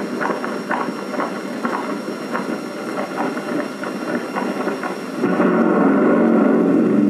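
Soundtrack of a 16mm film played over open-air cinema loudspeakers: a crackly, hissing rumble with scattered clicks. About five seconds in it gives way to a louder, lower, steady sound.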